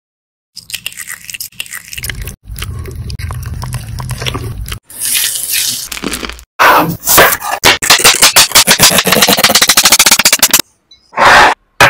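Food-preparation sounds in short cuts: scraping and rustling, then a fast, even run of sharp knocks lasting about three seconds.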